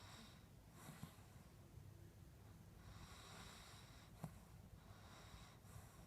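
Faint, slow breathing of a sleeping toy poodle, each breath a soft nasal rasp with a thin whistling edge, about one every two and a half seconds, somewhere between sleep breathing and a light snore. A short click about four seconds in.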